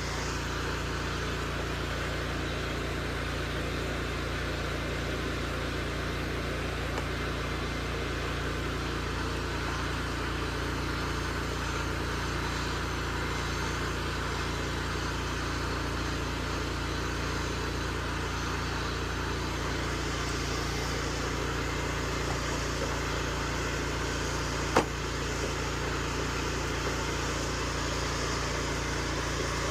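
Pressure washer's engine running steadily, with a steady hiss over it. A single sharp click about 25 seconds in.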